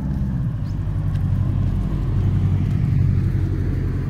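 A car driving past on the road alongside, its engine hum and tyre noise swelling to a peak about three seconds in and then easing off.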